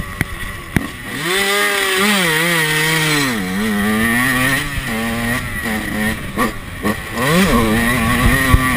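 Yamaha YZ two-stroke dirt bike engine revving hard under acceleration: the pitch climbs steeply about a second in and holds high, drops off at about three and a half seconds, then climbs again near the end. A few sharp knocks cut through it.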